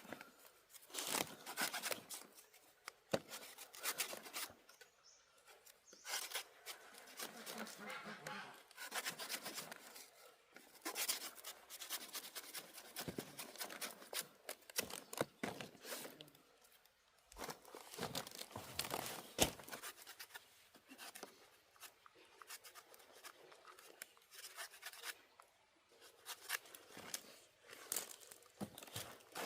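Irregular rustling, scraping and tearing of material being handled, with many scattered sharp knocks and clicks.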